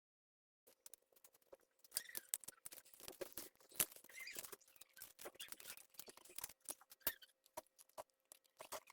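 Dense small clicks, taps and scrapes of hand tools and parts being handled at a workbench, over a faint steady hum.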